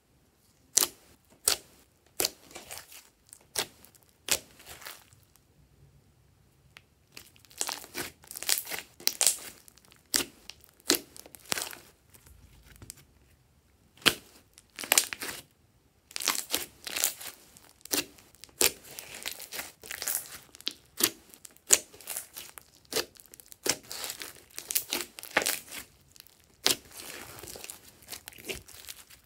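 Glossy slime being squished, stretched and folded by hand, giving sticky crackling and popping sounds in quick irregular runs, with two short pauses.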